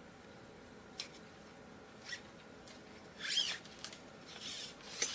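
Loosened guitar strings being handled and pulled off the guitar as one bundle: a few light clicks, then a louder scraping swish of metal strings sliding about three seconds in, followed by more rustling.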